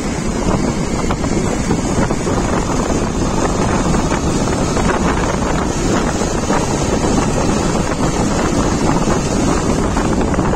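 Steady wind rush buffeting the microphone of a camera on a moving motorcycle, mixed with the bike's running and road noise.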